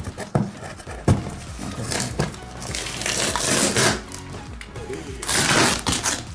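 Packing tape ripped off a cardboard box in two long tearing pulls, one about three seconds in and one near the end, with cardboard rustling and a few handling knocks.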